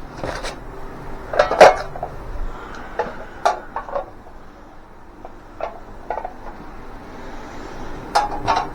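Metal parts of a flat-packed welding cart clanking and knocking as they are handled and set down out of the box: a scatter of separate knocks, the loudest about a second and a half in and a cluster near the end.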